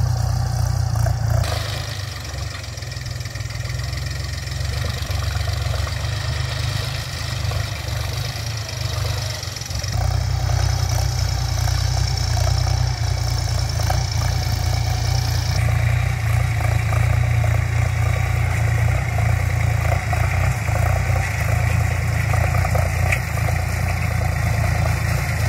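Iseki 35 tractor's diesel engine running steadily under load while pulling a six-disc plough through dry field soil. It grows louder about ten seconds in.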